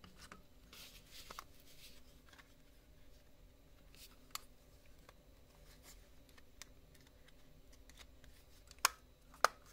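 Plastic housing of a computer mouse being pressed together by hand: faint handling and scraping, a few light clicks, then two sharp plastic clicks near the end.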